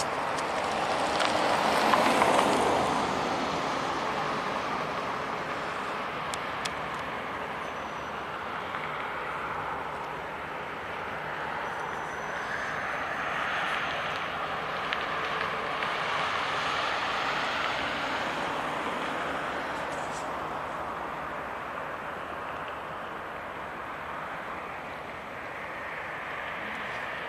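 Road traffic passing, with one car louder about two seconds in, over the steady low running of an EMD F9A diesel locomotive as it rolls slowly toward the crossing.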